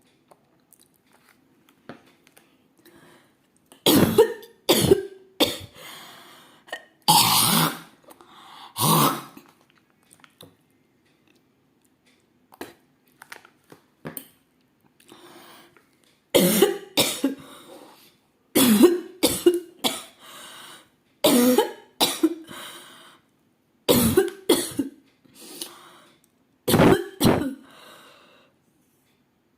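A woman coughing on purpose in repeated short fits of two or three coughs each. About seven seconds in there is a longer, harsher throat-clearing spell.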